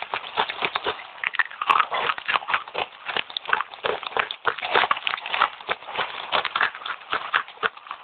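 Close-miked fast crunching and chewing of wet red clay chips: a rapid, continuous run of crisp crackles, several a second.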